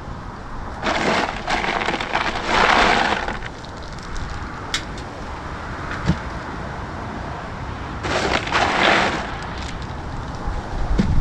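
Ice cubes clattering and rattling as they are tipped into a plastic cooler, in two spells: one about a second in lasting a couple of seconds, and a shorter one about eight seconds in.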